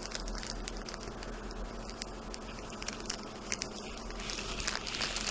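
Hands opening and handling a small gift pouch: soft rustling with scattered small clicks, growing busier near the end.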